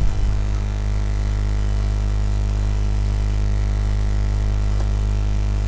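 Steady electrical mains hum, a low buzz with its overtones, picked up by the recording chain, with a few faint clicks.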